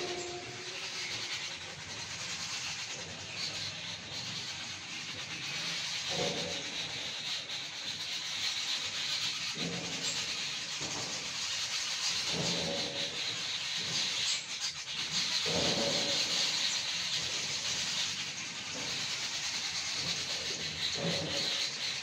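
A flock of small birds chirping together in a dense, continuous high chatter, with a few short louder rustles, likely wings fluttering, every few seconds.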